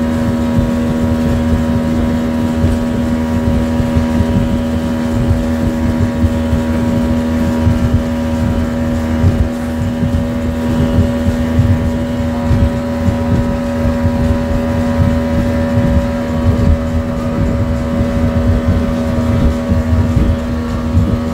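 Outboard motor of a small motorboat running steadily at speed, a constant engine tone over a rumbling rush of water and wind.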